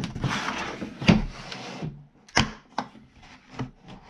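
Hard plastic tool carrying case being handled and set on a wooden bench: a scuffing, sliding rub in the first couple of seconds, then a few sharp plastic clicks and knocks.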